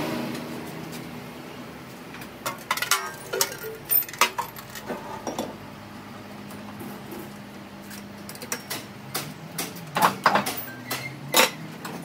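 Sharp metal clinks and clanks as a large steel gear and the lathe it is mounted on are handled by hand, scattered and loudest near the end, over a low steady hum.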